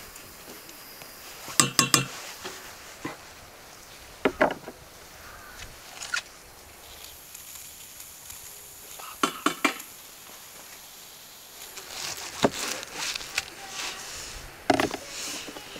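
Metal cookware and utensils clinking and knocking in short clusters of strikes every few seconds, some with a brief metallic ring.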